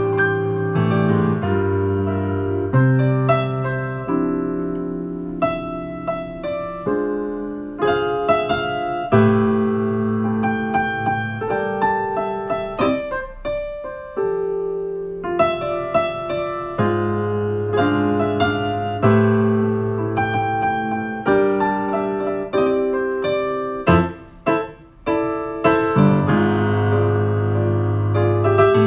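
Solo piano playing a slow song: struck chords over bass notes, each chord ringing and fading, with a brief break about 24 seconds in.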